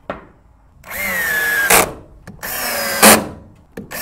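DeWalt cordless drill driving screws into a wooden stud in two runs of about a second each, the motor's whine sinking a little under load. Each run ends in a sharp, loud crack as the screw seats.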